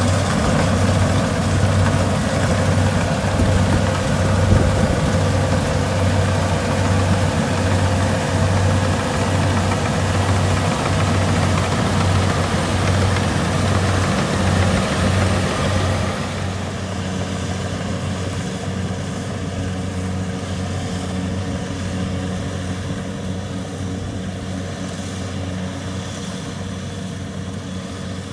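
Kubota DC70 rice combine harvester's diesel engine running with a steady, pulsing low drone. About sixteen seconds in it becomes quieter and the deep hum drops away.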